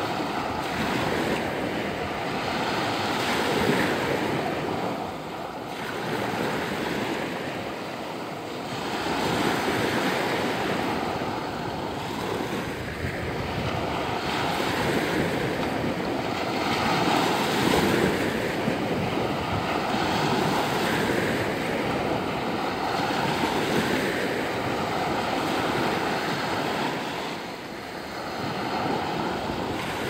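Small Black Sea waves breaking and washing onto the shore, the surf swelling and easing every few seconds.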